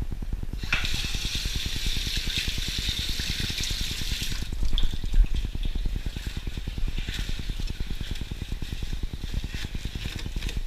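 Tap water running into a stainless steel sink, turned on about a second in and loudest for the next few seconds, then more uneven. A steady low hum runs underneath.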